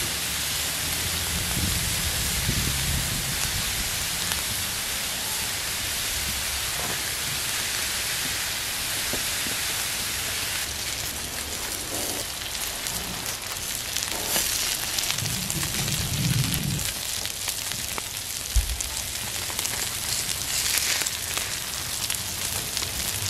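Diced onions and frozen ground-beef slider patties sizzling steadily on a hot Blackstone flat-top griddle, with a few low knocks along the way.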